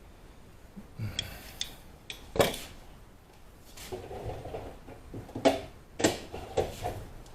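Metal hand tools being handled and set down, giving a series of sharp clinks and clanks with some rustling in between.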